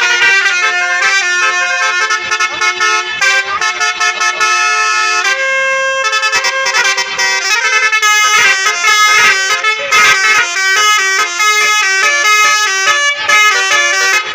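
Basuri 'telolet' horns, the multi-note musical air horns of Indonesian tour buses, playing a melody in quick stepped notes. One note is held a little past halfway, and the notes get denser and overlap in the second half.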